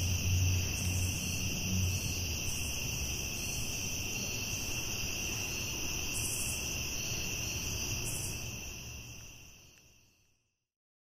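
Night insect chorus: steady high-pitched trilling over a low rumble. Both fade out to silence about nine to ten seconds in.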